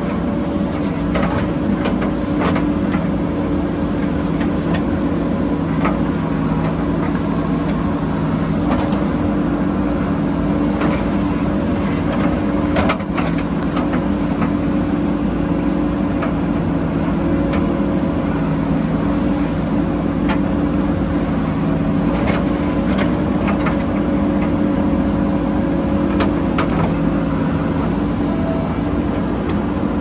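JCB backhoe loader's diesel engine running steadily under work, with scattered short knocks and clatters.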